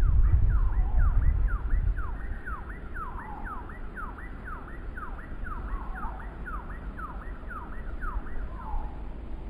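Wind gusting on the microphone and through pine trees, heaviest in the first two seconds, over a long series of quick sweeping chirps, about two or three a second, that stop near the end.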